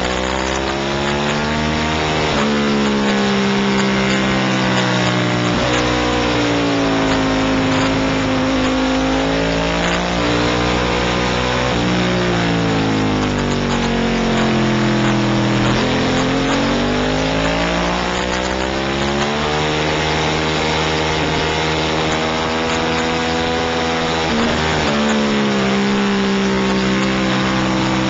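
Onboard sound of a racing motorcycle's engine at full race pace, the revs climbing through the gears and falling sharply on downshifts for the corners several times, with a sudden drop about halfway through and another near the end. Heavy rushing wind noise runs under it.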